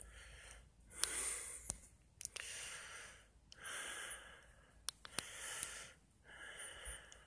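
Faint breathing close to the microphone: soft rushes of air, each under a second, coming every second or so, with a few small clicks between them.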